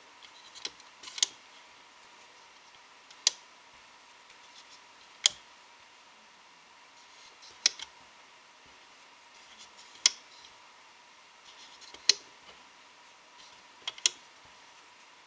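Sharp little clicks and snaps as rubber loom bands are stretched one by one onto the plastic pegs of a loom, about one every two seconds, with faint rustling in between.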